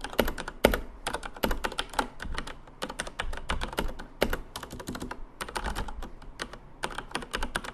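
Typing on a Corsair K63 tenkeyless mechanical keyboard with Cherry MX Red linear switches: a fast, irregular run of key clicks, several strokes a second, with a few louder keystrokes standing out. The presenter afterwards calls it not too noisy, with a soft, cushioned feel when pressed.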